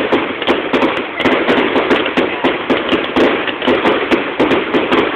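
Fireworks finale barrage: aerial shells launching and bursting in quick succession, a dense string of loud bangs at about five a second.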